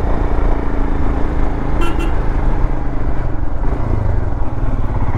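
Royal Enfield Himalayan's single-cylinder engine running under way through its stock exhaust, a steady low engine note from the rider's seat. A short, high double sound about two seconds in.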